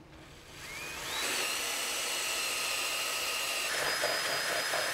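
Power drill with a small hole saw spinning up with a rising whine, then running steadily as it cuts into a fiberglass-covered plywood-cored floor in a boat hull, taking a core sample; the pitch of the whine shifts about two-thirds of the way through.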